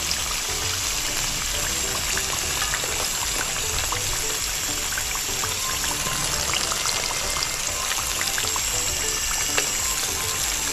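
Fish frying in hot oil: a steady sizzle thick with small crackles, with music playing in the background.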